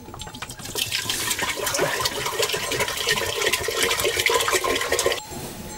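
Water poured from a vessel into a shallow metal plate that already holds water, splashing steadily for about four seconds and stopping abruptly near the end.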